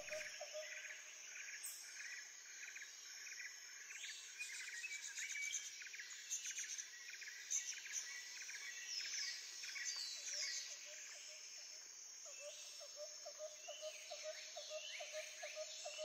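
Faint rainforest ambience: many birds chirping and calling, with quick falling whistles. From about ten seconds in, a lower call pulses a few times a second.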